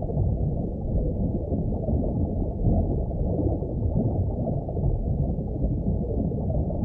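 Deep, muffled underwater ambience: a steady rumble with no high sounds in it, as heard below the sea surface.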